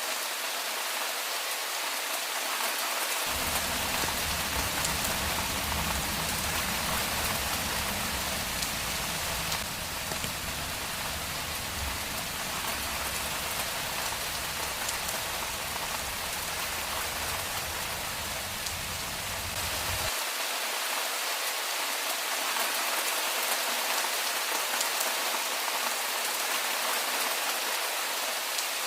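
Steady rain falling on a street, a constant even hiss of drops. A low rumble runs underneath from about three seconds in until about twenty seconds in, starting and stopping abruptly.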